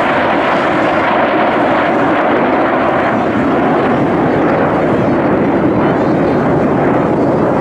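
Aircraft engine noise from a display plane flying over, a loud, steady rushing sound.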